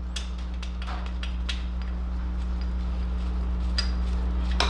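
A few light metallic clicks and taps, scattered over several seconds, from small motor mount bolts being started by hand into the top engine mounts of a motorcycle frame, over a steady low hum.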